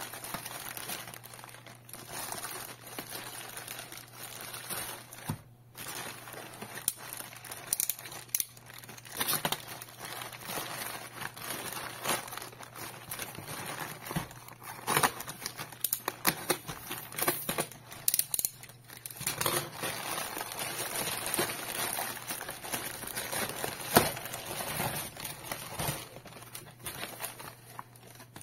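Plastic postal mailer bag crinkling and tearing as it is handled and slit open with a utility knife, with irregular crackles and snaps throughout and one sharp loud snap about two-thirds of the way through. Near the end, the inflated air-column cushioning around the parcel rustles as it is lifted out.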